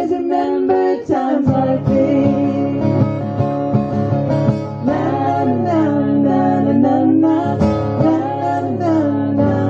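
Women singing a song with strummed acoustic guitar accompaniment.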